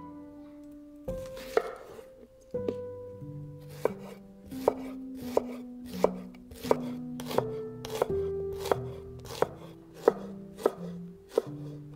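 Chef's knife slicing a shallot on a wooden cutting board: a sharp knock of the blade on the board about one and a half times a second, starting about a second in. Soft background music plays underneath.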